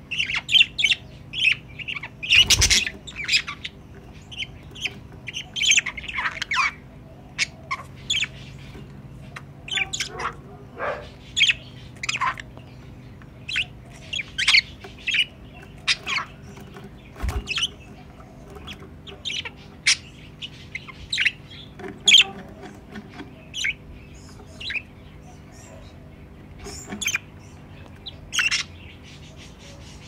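Budgerigars chirping and squawking in short, scattered calls, with a dull knock about two and a half seconds in and another a little past the middle.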